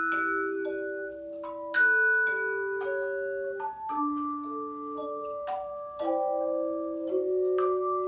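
Tone chimes, tuned metal handchimes, played by an ensemble: a slow melody of struck notes, each one ringing on and overlapping the next.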